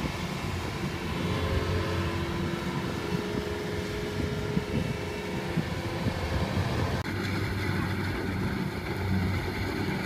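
Kubota combine harvester's diesel engine running steadily under working load. The sound breaks off abruptly about seven seconds in and resumes straight away.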